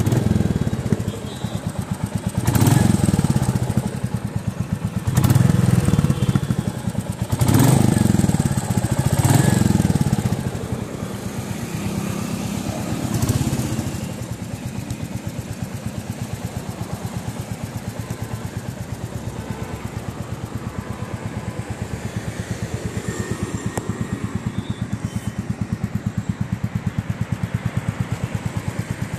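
Royal Enfield Classic 350 single-cylinder engine running through its stock exhaust: revved with about five short throttle blips, then settling back to a steady idle with an even thumping beat from about halfway through.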